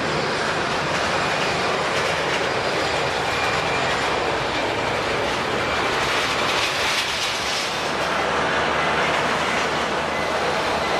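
Jet airliner engines running at a steady level: a loud, even rush with a faint high whine laid over it.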